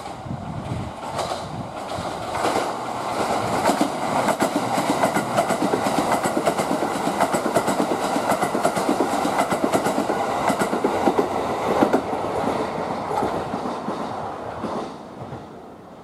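Kintetsu 80000 series Hinotori limited express running through the station at speed without stopping, its wheels clattering over the rail joints. The sound builds as the train nears, stays loud for several seconds while the cars pass, then fades away near the end.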